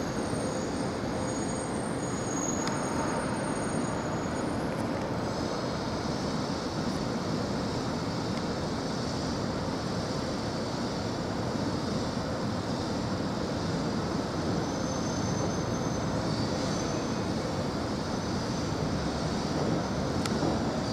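Steady rumble of a distant subway train on elevated tracks, mixed with city traffic noise.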